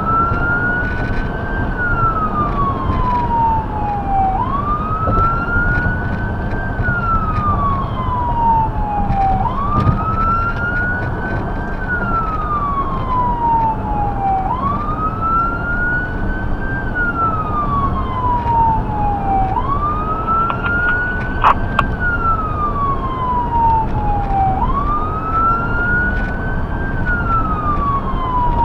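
Electronic wail siren on a 2017 Ford Explorer Sport emergency response vehicle running on a call: each cycle rises quickly in pitch and then falls more slowly, repeating about every five seconds, over steady road and engine noise. A single sharp click comes about three quarters of the way through.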